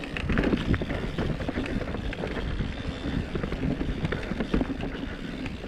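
Mountain bike rolling over a rough dirt trail: a steady rumble of tyres on the ground with frequent irregular clatters and knocks from the bike rattling over roots and rocks.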